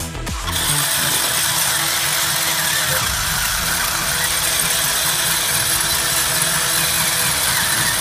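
An electric RC car's motor spinning a circular saw-blade wheel at speed while the blade grinds into crushed ice. A steady whirring with a gritty, hissing scrape that sets in about half a second in.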